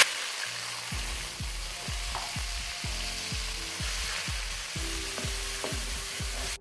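Chopped onions sizzling in hot oil in a metal pot, stirred with a wooden spoon. A background music beat comes in underneath about a second in.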